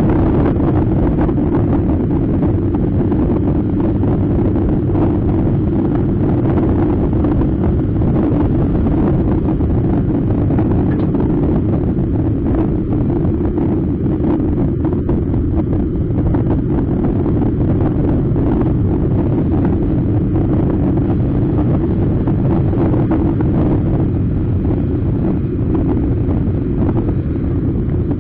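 Steady wind buffeting on the microphone of a scooter-mounted camera while riding at road speed, mixed with the scooter's engine and tyre noise.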